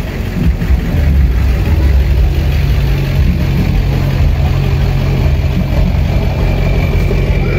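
Pickup truck engine running steadily at idle close by, a continuous low hum as the truck creeps along at walking pace.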